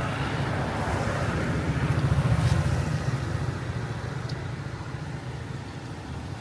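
A motor vehicle's engine running close by as it passes, loudest about two and a half seconds in and then fading away, over general street noise.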